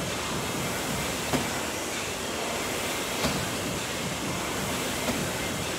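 A 20-pound medicine ball striking the wall target in wall-ball shots, three faint thuds about two seconds apart, over a steady background hiss.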